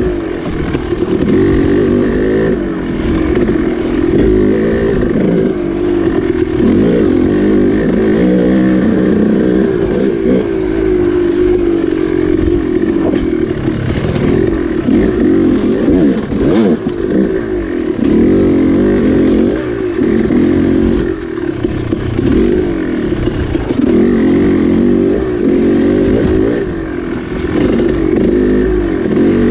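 Dirt bike engine pulling along a twisting trail, its revs rising and falling constantly as the throttle is worked on and off.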